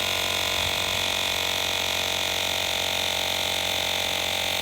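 Cordless portable tyre inflator's compressor running steadily at an even pitch, pumping up a car tyre.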